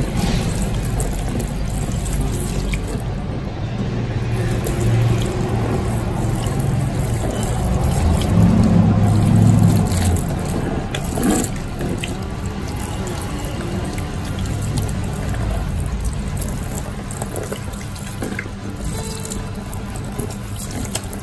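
Water spraying from a handheld salon shower head onto hair and hands and splashing into a plastic wash basin, with music playing underneath.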